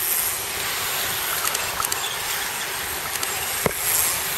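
A bunch of racing road bikes passing close by: a steady rush of tyres on tarmac and air, with a few sharp clicks.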